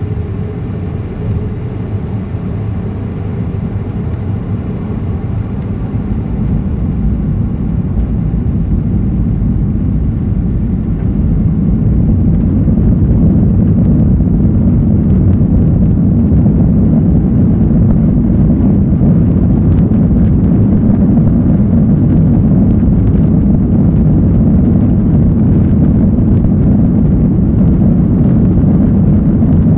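Jet airliner heard from inside the cabin as it accelerates on the runway for take-off: a deep engine and rolling rumble that grows louder over the first dozen seconds, then holds steady and loud.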